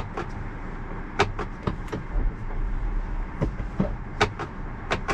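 Low steady hum inside a stopped Tesla Model Y, with about ten irregular sharp clicks from the right-hand drive stalk being pushed again and again to engage Full Self-Driving. It fails to engage while the brake is still held.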